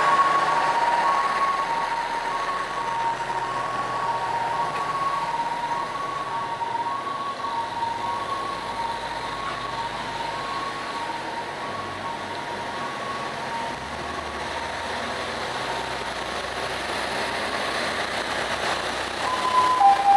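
Two-tone fire engine sirens alternating between a high and a low note while a column of fire trucks drives past with their diesel engines running. The first siren fades over the first several seconds, engine rumble carries the middle, and a louder siren on a slightly lower pair of notes starts near the end.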